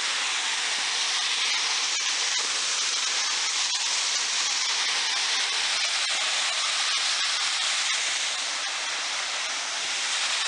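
Waterfall cascading over rock: a steady, even rush of falling water.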